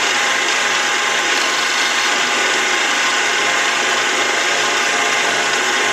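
Mini lathe running steadily, its motor and gear train giving a steady whine over a hiss. A cutter is taking a light cut to widen a slot in a shell holder.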